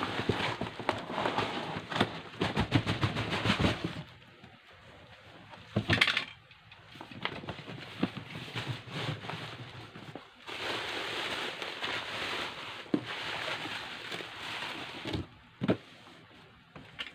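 Packaging being handled: dense crackling and rustling, with a single sharp knock about six seconds in and another stretch of rustling later.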